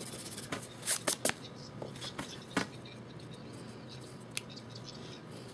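Pencil scratching on sketchbook paper in short, quick strokes, loudest in a cluster of three about a second in, then a few lighter strokes.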